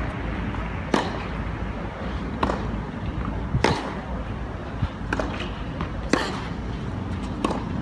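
Tennis rally on a clay court: rackets striking the ball with sharp pops about every one and a quarter seconds, some hits louder than others, over a steady outdoor rumble.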